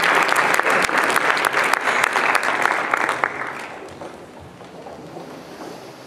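Audience applauding, then dying away about three seconds in.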